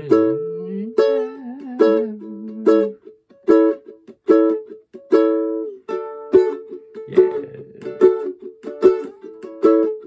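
Ukulele strummed in short, clipped chord strokes, about one every three-quarters of a second.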